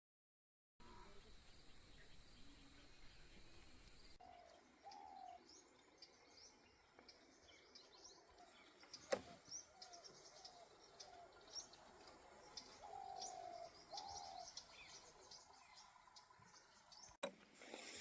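Faint outdoor ambience of birds chirping, with many quick high chirps and a few lower, drawn-out calls. There is one sharp click about halfway through.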